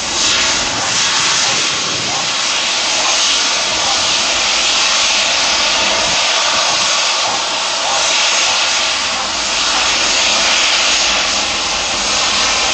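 Jet engines of an Airbus A330-200 airliner, a loud steady rush that swells and eases several times.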